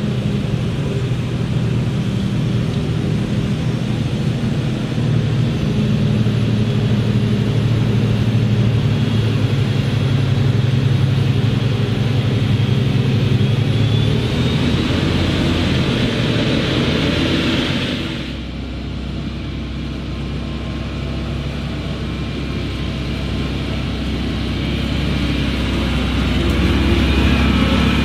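Claas Jaguar forage harvester and Fendt tractor running steadily side by side while chopping maize, a full machine drone with a hiss reaching high up. About two-thirds of the way through it cuts abruptly to a lower, quieter Fendt tractor engine rumble that grows louder as the tractor approaches with its loaded silage trailer.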